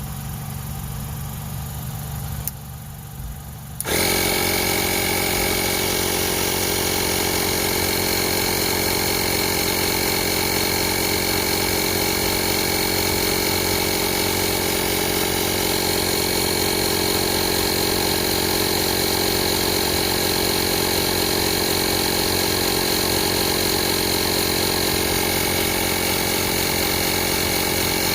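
12-volt portable tire inflator air compressor switching on about four seconds in and then running steadily, a loud motor drone with a high whine. Before it starts there is a low hum and a click.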